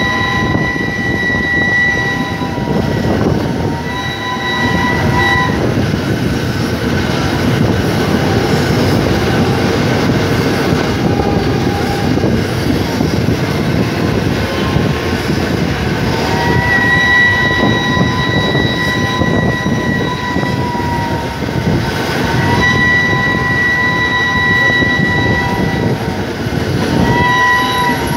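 Train running on the rails, heard from an open carriage window, with five loud train whistle blasts over it: two short ones near the start, a long one of several seconds past the middle, another long one, and a short one near the end.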